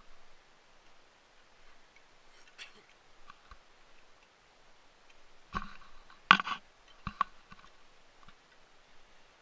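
Footsteps on a dirt forest trail: sparse faint crunches and clicks, with a short run of louder crunches and clicks about six seconds in.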